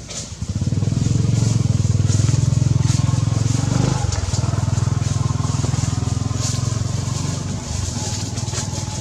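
An engine running close by. It comes up loudly about half a second in, dips briefly in pitch around four seconds in, then runs steadily and slowly fades.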